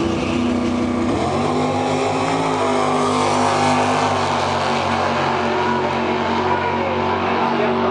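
Two drag cars, a Dodge SRT-4 and an AMC AMX, launching about a second in and accelerating hard down the drag strip, their engines running at full throttle.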